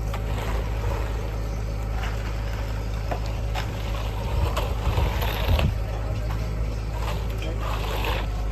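Engine of concrete-pouring machinery running with a steady low drone, with scattered knocks and scrapes of work on the fresh slab.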